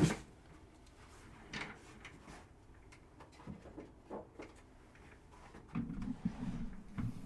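Faint, scattered handling noises: a short knock at the start, a few light clicks, and a cluster of soft low knocks near the end.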